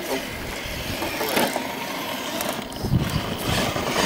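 Radio-controlled rock crawler driving over rocks, its electric motor and drivetrain running, with a few knocks of the tyres and chassis against stone.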